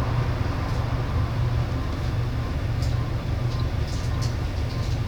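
Alexander Dennis Enviro 300 single-deck bus on a MAN chassis running, a steady low engine and road drone, with a few light clicks or rattles about three to four and a half seconds in.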